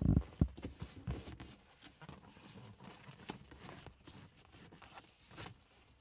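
Seat belt latch plate and buckle being handled: a thump right at the start, then a few separate sharp clicks and light rustling knocks of the belt hardware.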